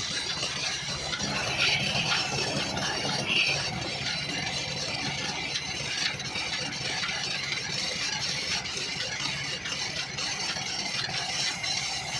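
Belt-driven wood lathe running steadily, spinning a turned wooden spindle.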